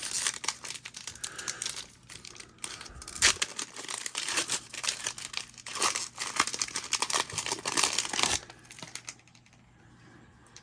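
A trading card pack wrapper being torn open and crinkled in the hands, a dense run of crackling that lasts about eight seconds and then dies away.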